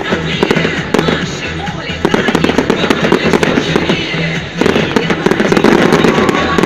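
Fireworks going off in rapid, irregular bangs and crackles, over music with a steady pulsing bass beat.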